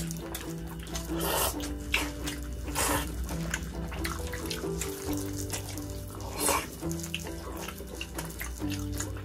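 A few loud, wet slurps of ramen noodles and broth, spaced a second or more apart, over background music with held bass notes.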